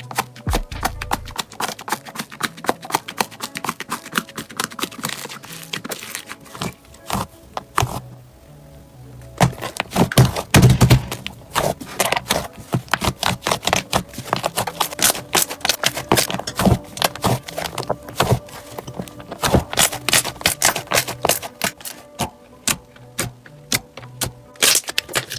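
Slime being squeezed and worked by hand, giving many rapid sharp clicks and pops, with a brief lull about eight seconds in, over background music.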